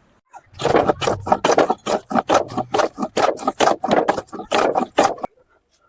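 Hand saw cutting wood in quick, steady strokes, about four or five a second, stopping a little after five seconds.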